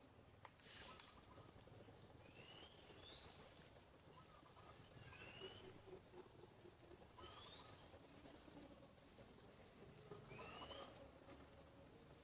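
Birds chirping in the background: a short high note repeated about once a second, with rising whistled calls every couple of seconds. A brief sharp crackle, the loudest sound, comes under a second in.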